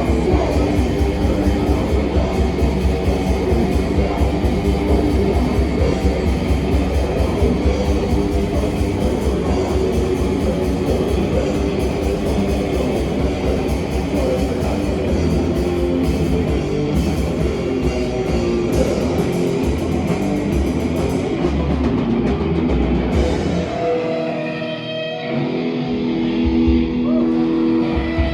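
A rock band playing live: guitars over fast, dense drumming. About three-quarters of the way through the drums drop out, leaving guitar chords ringing, before a few more hits near the end.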